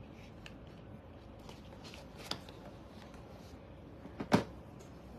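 Small handling sounds of earrings and their jewellery box: faint taps and rustles, a sharper click about two seconds in, and the loudest click a little past four seconds.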